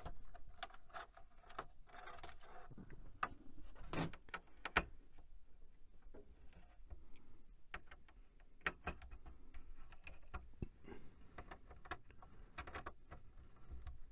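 Scattered light clicks and taps of hands handling the parts of an old computer being taken apart, irregular and faint.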